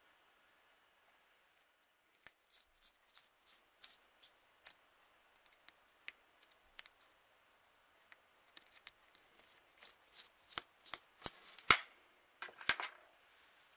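Small clicks and taps from the parts of an H0 model locomotive being handled during its rebuild. They are sparse at first, then come faster and louder from about ten seconds in, with a short scrape near the end.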